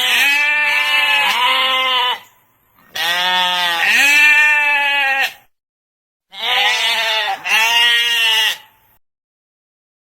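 Sheep bleating in three bouts, each of two or three quavering bleats, with short silent gaps between them.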